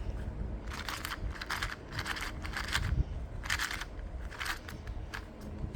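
Non-magnetic Monster Go 2x2 plastic speed cube being turned by hand: a run of short plastic clicks and scrapes, about a dozen, at uneven intervals.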